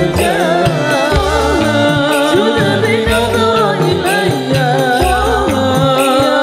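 Hadrah ensemble performing a sholawat: a man's voice sings an ornamented, wavering melody over frame drums, with deep low drum strokes and sharp high percussion hits in a steady rhythm.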